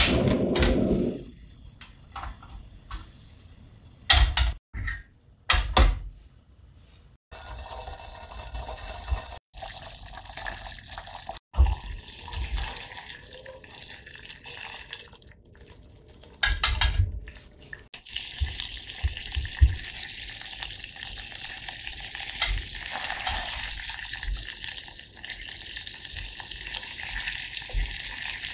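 A few sharp knocks, then garlic cloves sizzling in oil in a stainless yukihira pan: a steady hiss that grows louder and more crackly as the oil heats.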